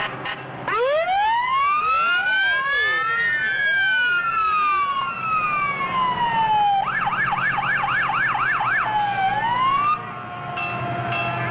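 Fire truck siren: a wail that climbs over about two seconds and then falls slowly, switching to a fast yelp for about two seconds before one short last rise, then cutting off.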